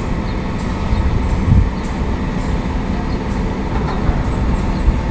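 Steady low rumble of running construction machinery, an engine-like drone with no clear rhythm, with a brief louder bump about a second and a half in.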